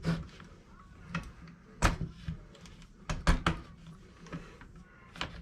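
Irregular sharp clicks and knocks of a steel axle and hub being worked into the wheel hub carrier of a Traxxas Maxx RC truck, loudest near the middle, over a faint steady hum.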